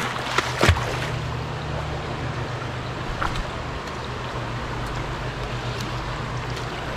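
Shallow creek water running over rocks, a steady rush, with a couple of sharp knocks in the first second.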